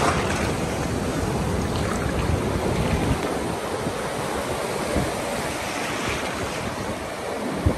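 Ocean surf: small waves breaking and washing up a sandy beach in a steady wash, with wind buffeting the microphone in low, irregular rumbles.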